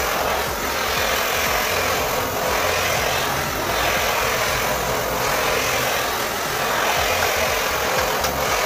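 Butane canister blowtorch flame hissing steadily as it heats PVC conduit to soften it.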